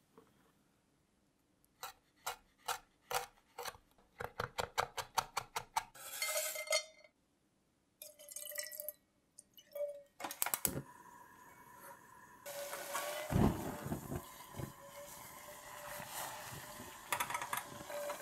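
Small sharp clicks, one every half second or so and then quickening to about four a second, followed by liquid pouring into a steel pot. About two-thirds of the way in a saucepan of green peppercorns starts sizzling steadily, with one low thump soon after it starts.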